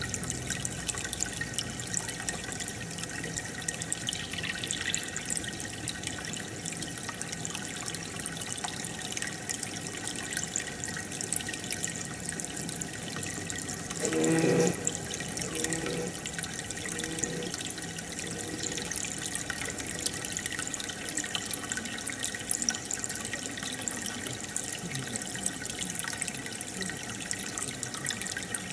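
Aquarium water bubbling and trickling steadily, with a fine crackle of bursting bubbles from the air stream rising in the tank. About halfway through, a short louder pitched sound lasts under a second.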